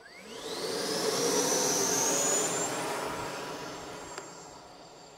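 Electric ducted fan of an FMS Viper V2 70 mm EDF jet spooling up for takeoff: a whine that rises in pitch over about two and a half seconds as the throttle comes up, then the jet's rush fading away over the last couple of seconds.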